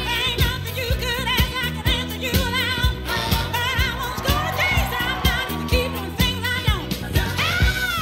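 Pop song with a sung lead vocal in wavering, held notes over a steady drum beat.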